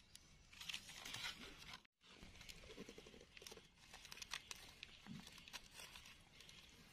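Faint crackling and rustling of dry fallen leaves as hands work through the leaf litter and a knife cuts bolete mushrooms free at the stem.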